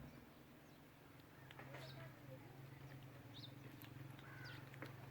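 A few faint, scattered bird chirps over a low steady hum.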